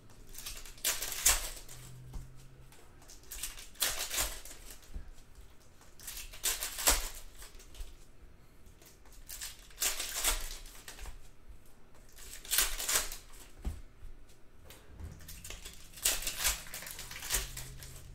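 Plastic trading-card pack wrappers crinkling and tearing as packs are opened and the cards handled, in short bursts about every three seconds.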